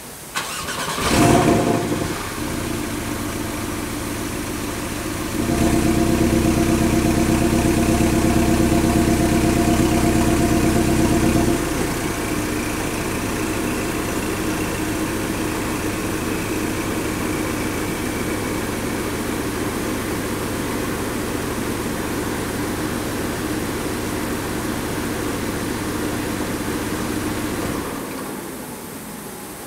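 Cold start of a 2017 Porsche 718 Cayman's turbocharged flat-four engine. The starter cranks and the engine fires about a second in with a short flare, then idles. About five seconds later the idle steps up louder for some six seconds before settling to a lower, steady idle, which drops away near the end.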